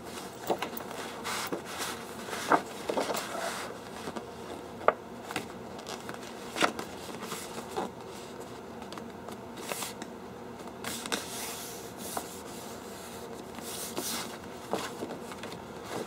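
Posterboard being folded and creased by hand: the stiff board rustles and scrapes, with scattered sharp crackles and taps as the folds are pressed flat.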